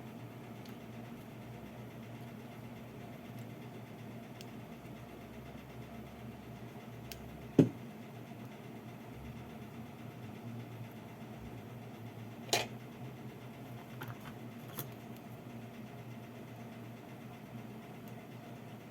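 Steady low hum with a few sharp clicks of small parts and tools being handled on an electronics workbench: one loud click about seven seconds in, another about twelve seconds in, and two faint ticks soon after.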